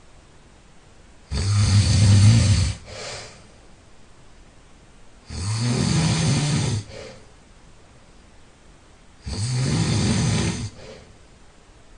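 A person snoring while ill: three loud snores about four seconds apart, each lasting about a second and a half and followed by a short, fainter breath.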